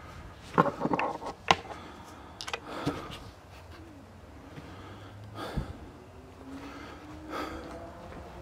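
Irregular sharp knocks and clicks in an empty room. The loudest come in a cluster in the first two seconds, then a few fainter ones are scattered through the rest.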